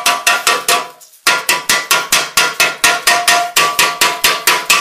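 Chipping hammer rapidly striking slag off fresh stick-weld beads on a steel snowmobile ski's wear bar: sharp metallic taps, about six a second, with the steel ringing, broken by a short pause about a second in.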